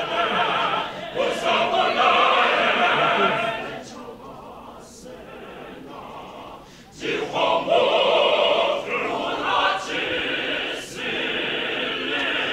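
Mixed choir of men's and women's voices singing, dropping to a soft passage about four seconds in and returning at full voice about three seconds later.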